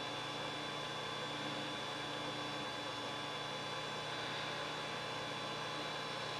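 Steady hum of a running desktop computer's fans and drives, with a faint high whine over it, as it boots from a live CD.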